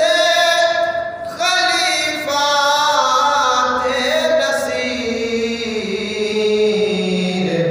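A man singing an Urdu manqabat unaccompanied, drawing out long held notes that bend and glide, with a brief breath about a second in and the melody sinking lower near the end.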